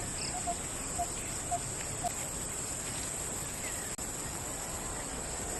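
Rural outdoor ambience: a steady high buzz of insects, with a bird's short call repeating about twice a second over the first two seconds.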